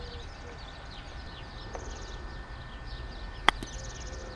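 A single sharp click near the end as a putter strikes a golf ball firmly out of a shallow sand bunker. Birds chirp throughout.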